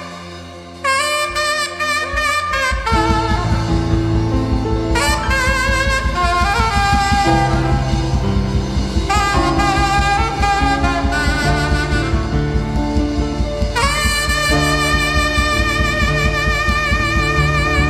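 Instrumental music with a saxophone-like lead playing a slow melody with vibrato; bass and drums come in about three seconds in with a steady beat.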